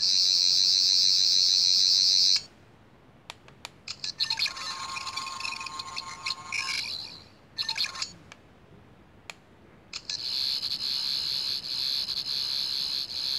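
13th Doctor sonic screwdriver toy playing its electronic sound effects: a loud, high warbling buzz for about two seconds, a quieter, different effect around the middle, and another high warbling buzz from about ten seconds in.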